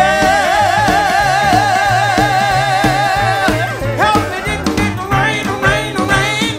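Gospel song with a band: a woman's voice holds one long high note with wide vibrato for about three and a half seconds over a stepping bass line, then the melody moves on.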